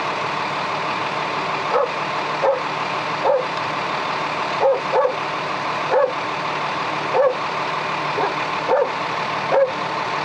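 A dog barking about ten times in short, sharp barks at irregular intervals, over a steady background hum.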